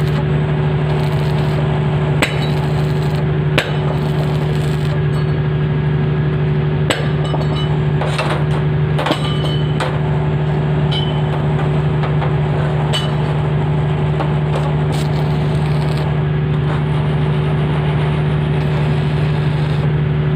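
A steady, loud machine hum with a few sharp metallic clinks and knocks scattered through it.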